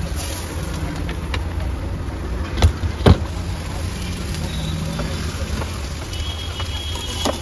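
Steady low rumble from an outdoor street food stall, with two sharp knocks about two and a half and three seconds in, as metal utensils strike the iron wok.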